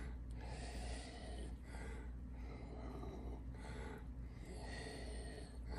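A man's steady breathing through the nose close to the microphone, rising and falling about every second, over a quiet room with a constant low hum.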